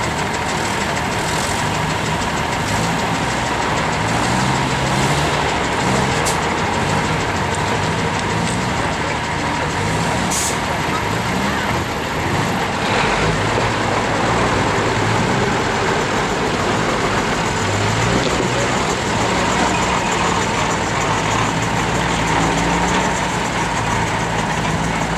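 Early open-cab Unimog's diesel engine labouring under load as the truck crawls up a steep, rutted mud track, its pitch rising and falling with the throttle.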